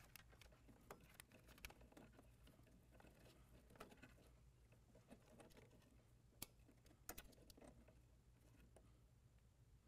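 Faint handling noise: cables and plastic parts rustling and clicking as wiring is routed inside an ATM cabinet, with a couple of sharper clicks a little past the middle, over a low steady hum.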